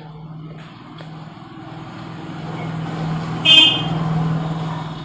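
Road traffic noise swelling and fading, with a short vehicle horn toot about three and a half seconds in.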